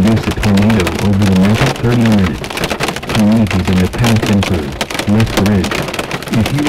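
Heavy rain and hail drumming hard on a car's roof and windshield, heard from inside the cabin as a dense, unbroken patter of impacts. A man's voice from the car radio talks underneath.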